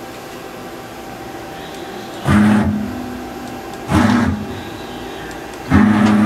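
Hwacheon Cutex 160 CNC lathe's 12-station turret indexing three times, starting about two seconds in and roughly every second and a half to two seconds. Each index is a sudden, loud, half-second burst with a low whine, heard over the machine's steady hum.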